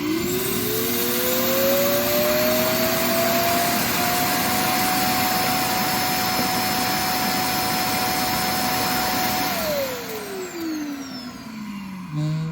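Roomba i3+ Clean Base auto-empty vacuum motor emptying the robot's bin. It starts suddenly, its whine rises over a few seconds to a steady, loud run, then it winds down with a falling pitch for the last few seconds. A short thump comes just before the end.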